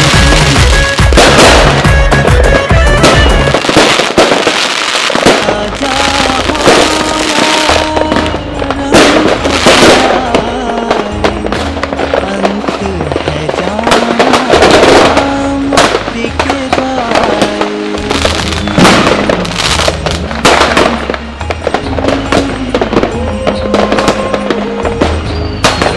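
Fireworks and firecrackers going off in repeated bangs and crackles, over music with a wavering melody.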